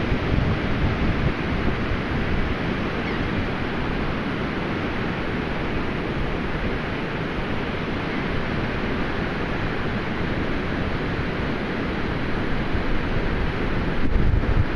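Steady rush of surf and wind on an open beach. Wind buffets the microphone near the end.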